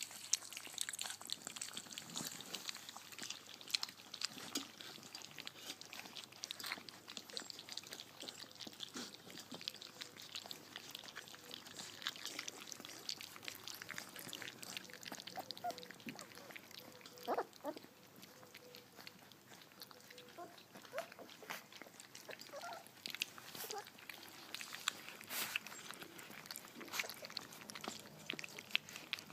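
A litter of 3.5-week-old puppies feeding: a continuous patter of small wet smacking and slurping clicks, with a few brief high squeaks from the puppies midway.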